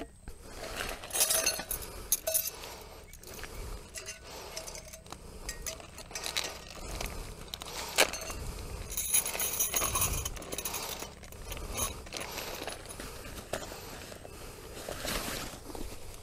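Irregular light clinks and rattles of small hard objects being handled, with a sharper knock about eight seconds in.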